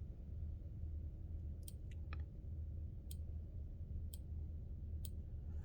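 A handful of light, sharp clicks, the last three about a second apart, over a steady low hum.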